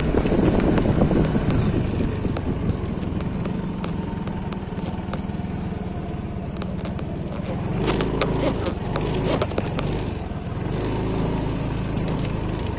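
Yamaha automatic scooter's engine running while it rides over a rough, rutted dirt track, its note shifting about two thirds of the way in. Sharp knocks and rattles come from the bumps, most of them in the second half.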